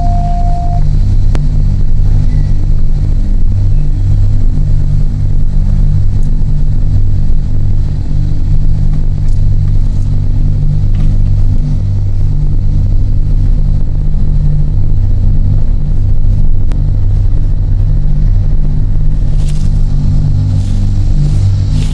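Car engine and road rumble heard from inside the cabin while driving, a steady low drone.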